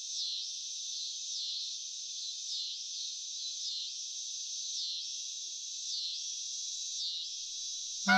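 Cicada song: a steady high buzz that dips and swells about once a second. A clarinet comes in right at the end.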